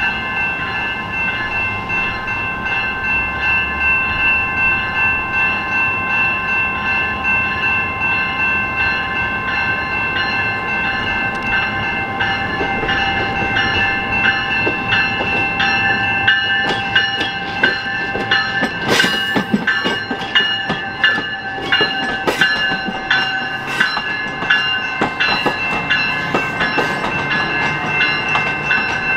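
Commuter train running through a station, with a steady whine throughout. Wheels click over rail joints from about halfway, thickest around two-thirds of the way in.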